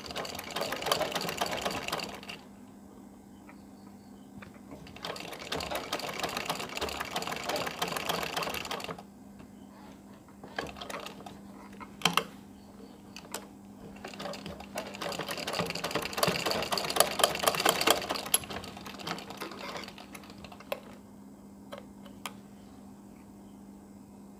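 Domestic sewing machine stitching cotton fabric in three runs of a few seconds each, a rapid needle clatter. Between the runs there are short pauses with a few sharp clicks.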